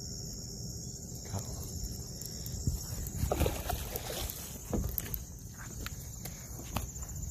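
Rustling, rubbing and scattered knocks from the camera and fishing gear being handled while a small largemouth bass is landed. A steady high trill of insects runs behind it.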